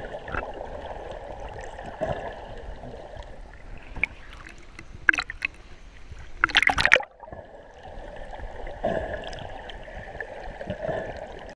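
Seawater sloshing and gurgling around a waterproof camera housing as it dips under and back above the surface, the sound muffled. There are sharp louder splashes about five seconds in and again around six and a half to seven seconds.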